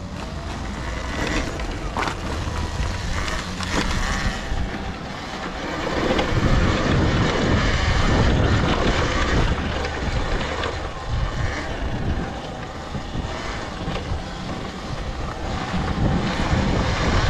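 Ride noise from a Talaria electric dirt bike on a forest trail: wind rushing over the camera microphone and tyres rolling over dirt and dry leaves, getting louder about six seconds in.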